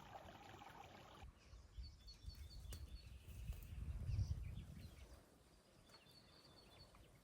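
Outdoor ambience. A trickle of water stops about a second in, then a small bird gives a quick run of high chirps twice, over a low rumble that swells in the middle.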